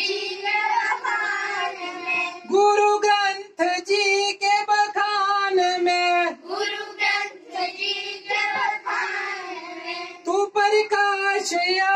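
A group of schoolchildren singing an all-faith prayer song together in unison, in phrases with long held notes and short breaks for breath.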